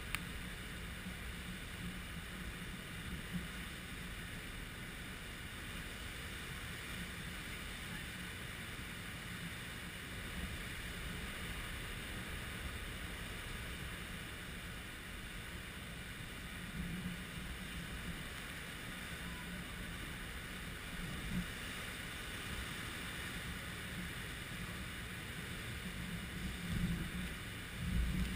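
Heavy surf breaking on a rocky shore, a steady roar of waves, with wind buffeting the microphone in louder gusts near the end.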